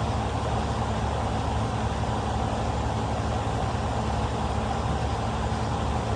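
A steady low mechanical hum under constant background noise, unchanging throughout, with no thunder.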